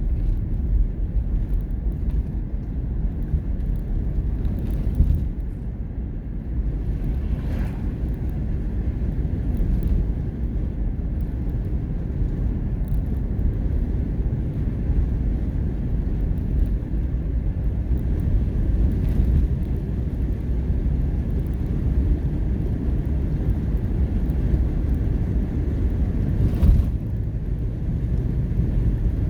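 Steady low rumble of a moving vehicle, engine and road noise, with a brief click about seven seconds in and another near the end.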